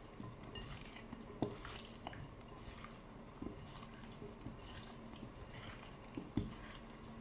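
Hands tossing thin potato slices coated in olive oil and spices in a glass bowl: soft, wet squishing and rustling, with two sharp knocks against the bowl about one and a half and six and a half seconds in.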